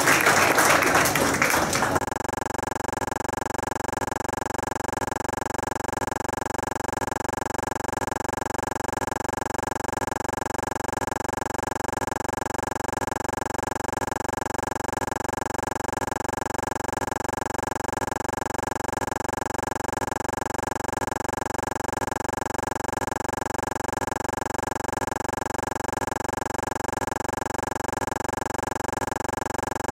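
Applause dies away about two seconds in. After it comes a steady, unchanging drone of several held tones with a fast, even pulse.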